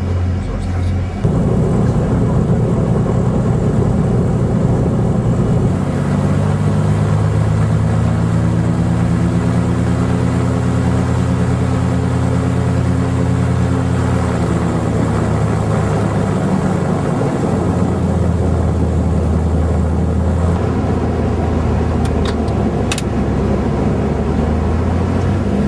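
De Havilland Dove's piston engines running, heard from inside the aircraft. The sound gets louder about a second in, and the engine note climbs a little then eases back midway.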